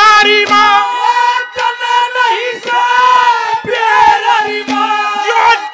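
A man singing a Haryanvi ragni on long, high held notes that bend in pitch, over musical accompaniment.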